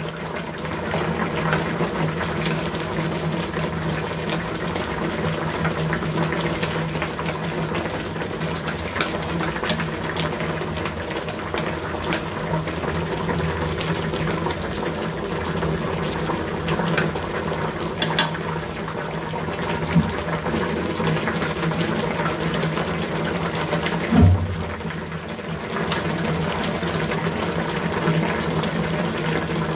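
Pork lung and potato soup simmering in a frying pan: steady bubbling with scattered small pops over a low hum. There is a knock about 24 seconds in, and the sound dips briefly after it.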